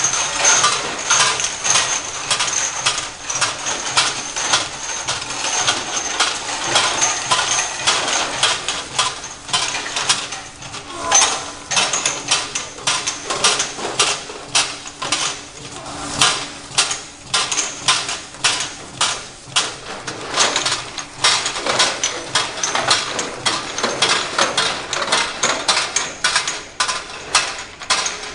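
Fully automatic horizontal labeling machine running: rapid, irregular clicking and clinking as small bottles roll and knock along its roller conveyor through the labeling belt, with a faint high whine during the first several seconds.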